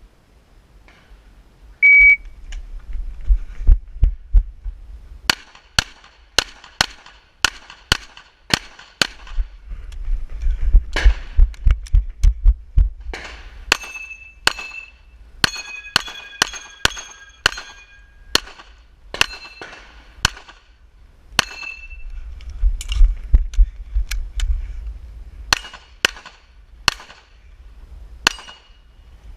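A shot timer beeps once about two seconds in, then a pistol fires a long series of shots in quick strings, with steel targets ringing after many of the hits.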